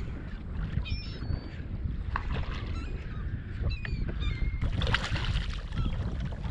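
Gulls calling in short squawks over wind buffeting the microphone and water lapping; a louder rush of splashing noise comes in about two thirds of the way through.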